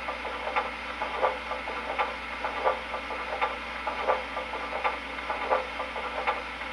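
Steam locomotive sounds from an MTH T1 Northern O-gauge model's Proto-Sound 2 sound system: a slow, regular beat of about one and a half strokes a second over a steady hum.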